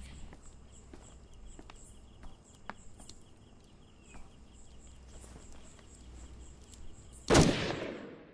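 Insect chirping in a steady, regular high-pitched pulse, with scattered faint clicks. Near the end a sudden loud bang rings out and dies away over about a second.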